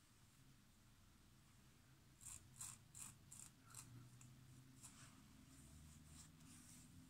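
Faint scraping strokes of a GEM single-edge safety razor cutting stubble on the neck: a run of short scratches, most of them a couple of seconds in, with near silence around them.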